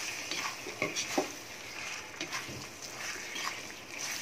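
Metal spatula scraping and knocking against a kadai while stirring paneer, onion and capsicum through a thick masala: a string of irregular short scrapes and clicks.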